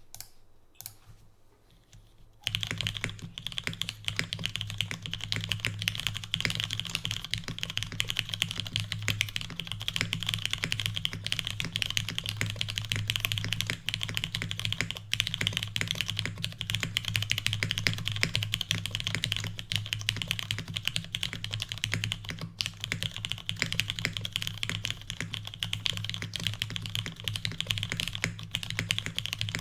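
Mechanical keyboard being typed on fast and continuously, starting about two seconds in: an Ahgase Prototype 2 with lubed and filmed Cherry MX Black linear switches in an aluminium plate, fitted with NicePBT keycaps.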